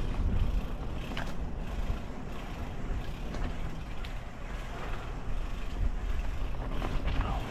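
Mountain bike being ridden on a dirt trail: steady low rumble of tyres and motion on the camera's microphone, with faint rattles and clicks.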